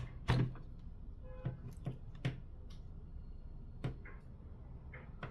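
A few scattered clicks and light knocks from handling a 1/4-inch ratchet handle and its hard plastic case.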